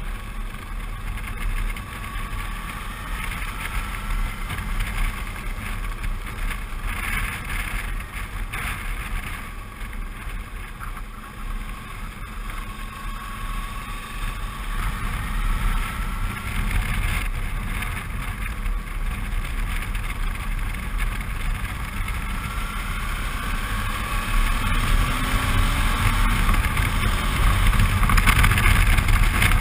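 Suzuki V-Strom 650's V-twin engine running under way, with wind rushing over the microphone. The engine pitch rises a few times as the bike accelerates, and the sound grows louder near the end.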